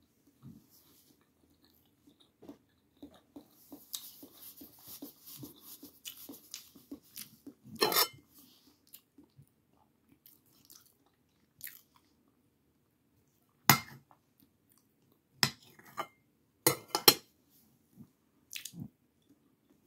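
Close-up chewing and small mouth sounds of someone eating boiled egg, with soft irregular clicks. One loud sharp click comes about eight seconds in, and several more sharp clicks and taps from handling the plate and the egg follow in the last third.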